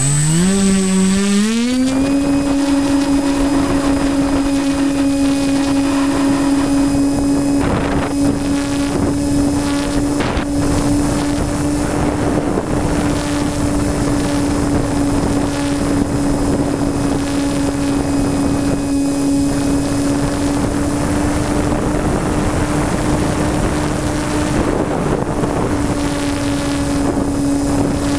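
A radio-controlled Skymule model plane's motor and propeller spooling up, rising in pitch over the first two seconds as it takes off, then holding a steady drone in flight. Wind rushes over the onboard camera's microphone throughout.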